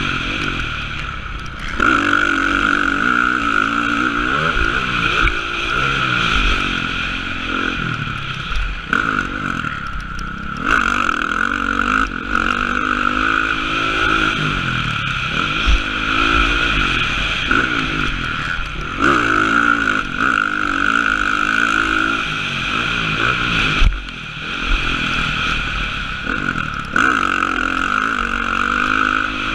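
Motocross dirt bike engine revving up and down as it is ridden around a track, heard from a helmet-mounted camera. The pitch climbs and falls every second or two, with brief dips where the throttle is shut off, about a second in, about ten seconds in and near the end.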